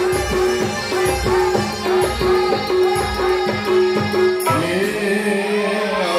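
Loud music with a steady drum beat and a short repeating melody note. About four and a half seconds in, the drumming stops and a long held sung note takes over.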